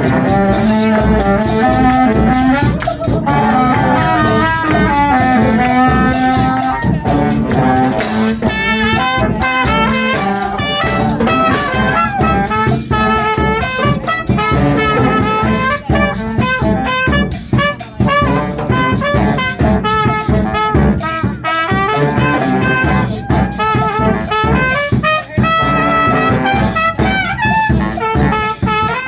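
Street brass band playing a jazzy tune: several horns in harmony over drums that keep a steady beat.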